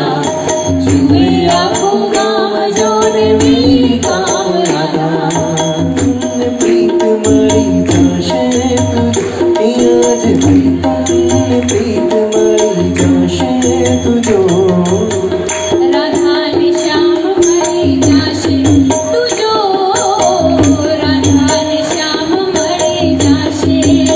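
Devotional bhajan sung into microphones by a man and a woman, with tabla and jingling hand percussion keeping a steady beat.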